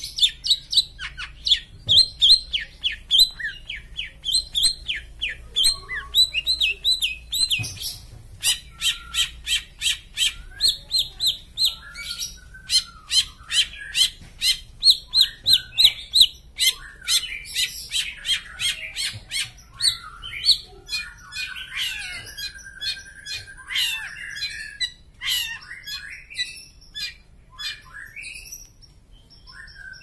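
Long-tailed shrike (cendet) singing a rapid, varied song: runs of short, sharp repeated notes, about four a second in places, broken by other phrases and a longer held whistle about three-quarters of the way through. The song is full of 'isian', phrases copied from other birds.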